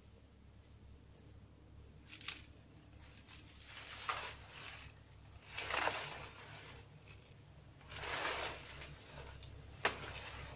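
Leaves rustling in three swells of a second or less, with a sharp knock about two seconds in and another near the end.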